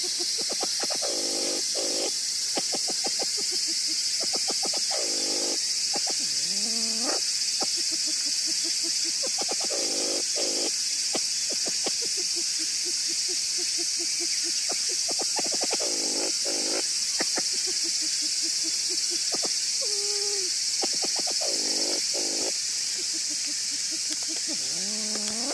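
A steady, high-pitched chorus of insects droning without a break. Beneath it come repeated lower clicking rattles and a few short rising squeaky calls from an unidentified animal.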